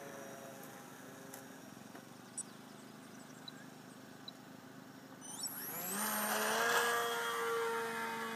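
Electric motor and propeller of a park-flyer RC model plane in flight. It is faint at first. About five seconds in, its whine rises sharply in pitch and grows much louder as the motor speeds up, then holds steady and sags slightly near the end.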